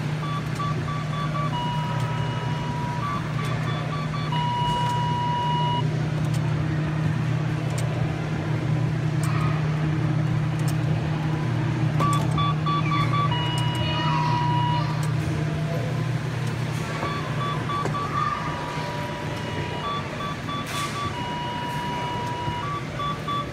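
R.G. Mitchell police helicopter kiddie ride running: a steady low hum under its electronic sound effects, sets of short beeps and held tones that start and stop, falling quiet for several seconds in the middle before starting again.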